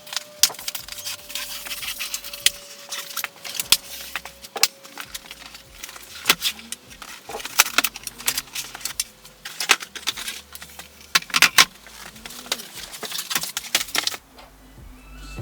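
Nickel-plated metal shelf brackets being handled, clinking and clattering with many irregular sharp clicks and some rubbing. The clinking stops abruptly about a second before the end.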